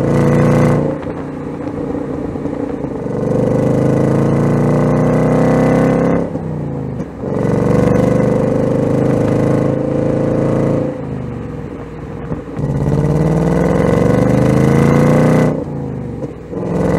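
2024 Ford Mustang Dark Horse's 5.0-litre Coyote V8 accelerating hard. The revs climb in three long pulls and fall back between each one.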